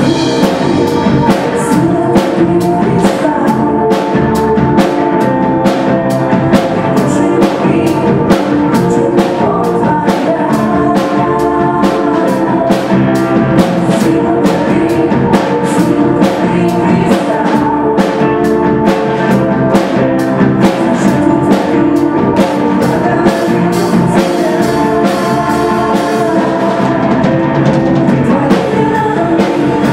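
Live worship band playing a song: women's voices singing over drum kit, electric guitar, bass and keyboards, with a steady drum beat.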